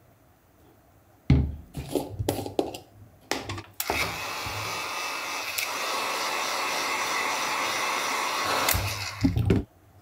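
Handheld electric heat gun blowing with a steady rush for about five seconds, heating a leather sheath, then cutting off. Knocks and clatter of the tool being handled come before it, and a couple of loud knocks as it is set down on the table near the end.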